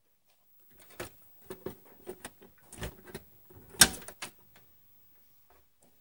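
A run of sharp metallic clicks and scrapes as pliers grip and work at a pop rivet in a sheet-steel PC case, with one loud click about four seconds in.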